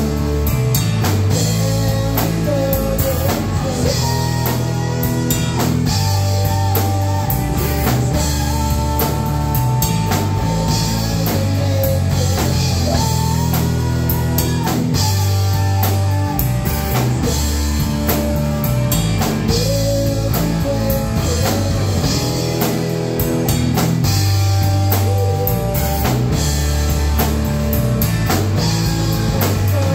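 Live hard-rock band playing at full volume: distorted electric guitar, bass guitar and a drum kit keeping a steady beat, with a man singing over them.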